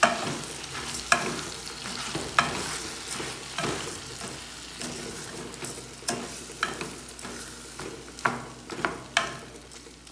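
Chicken and rice frying in oil in a large pot, sizzling steadily, while a utensil stirs them and scrapes and knocks against the pot about every second.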